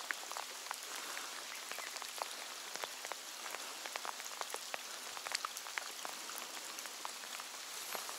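Steady rain falling on the water's surface: an even hiss scattered with many small, irregular drop ticks.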